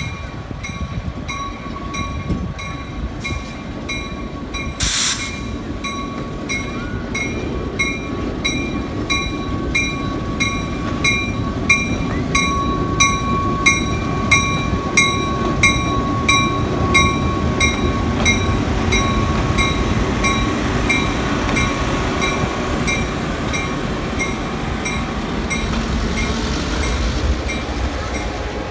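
Rock Island GP7R diesel locomotive passing slowly with a coach, its engine rumbling and its wheels squealing on the curve. A steady metallic ringing repeats about twice a second throughout. There is a short burst of noise about five seconds in.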